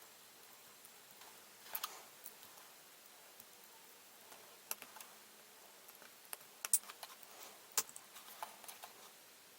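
Plastic nippers snipping plastic model-kit parts off their sprues, with small plastic parts being handled: a scatter of short sharp clicks and snips, the loudest a little after the middle.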